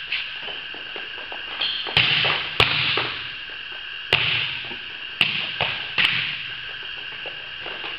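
Volleyballs being struck, the coach's hand hitting balls and players' forearm passes, as several sharp smacks about a second apart, each echoing in a large metal-roofed gym. A steady high-pitched tone sits underneath.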